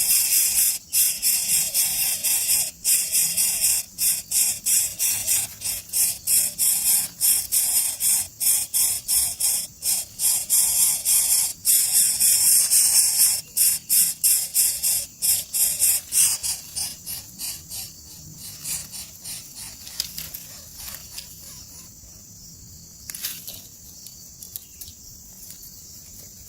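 Nestling birds begging for food with harsh, high-pitched calls in rapid pulses. The calling is loud for roughly the first two thirds, then dies away to faint scattered calls.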